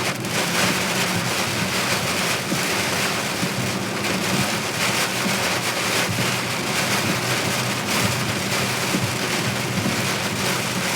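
Heavy rain beating on a moving car, a steady dense hiss with a low hum of the car beneath it.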